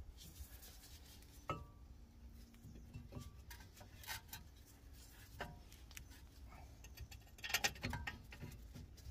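Light metallic clinks and taps as a Vauxhall Astra J's front brake caliper carrier is offered up over the new disc and fitted to the hub: a few scattered knocks, with a quick cluster of them near the end.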